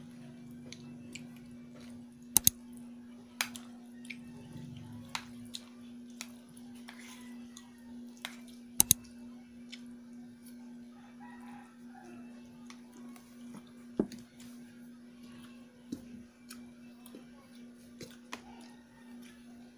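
Metal spoon clinking sharply against a plate while someone eats, several times, twice as a quick double clink. Soft chewing is heard between the clinks, over a steady low hum.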